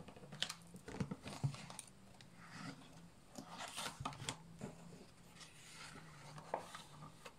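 A hardback picture book being opened and its pages turned and smoothed flat: faint paper rustling and brushing with a few light clicks, busiest about one second in and again around four seconds in.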